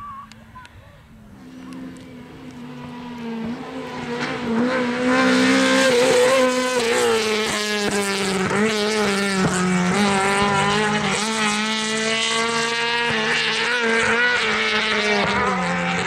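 Rally car engine approaching, growing louder over the first five seconds, then held loud at high, fairly steady revs with small wavers in pitch.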